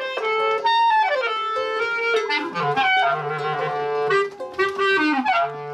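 A wind instrument playing a tune of held notes that step and slide up and down in pitch.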